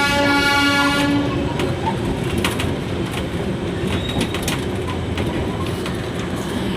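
Darjeeling Himalayan Railway toy train sounding a horn for about the first second and a half. The train then runs on with a steady rumble and scattered clicks of its wheels over the rail joints.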